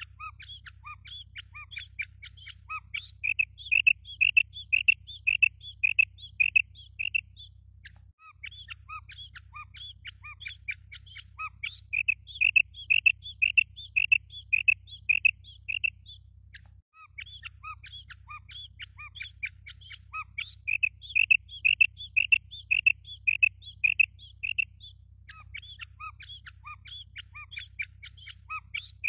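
Female common quail giving its krik call: each bout starts with quick, fainter chirps and goes on into a string of louder, high, evenly spaced krik notes, about three a second. The bout breaks off and begins again in the same pattern about every eight seconds, over a low steady hum.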